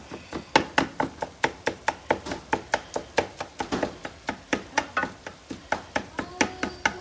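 Plastic meat chopper jabbing down through ground beef in a skillet, knocking on the pan bottom in a steady rhythm of about four strokes a second as it breaks the meat into small pieces.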